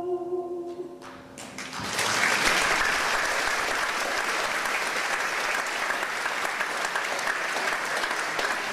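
The last chord of a grand piano dies away, then an audience applauds, rising about a second and a half in and holding steady, dense clapping.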